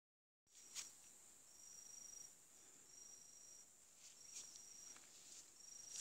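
Faint insects calling: a steady high-pitched drone with a short, high, even-pitched trill repeating about every second and a half. A few sharp clicks sound over it, the loudest just under a second in.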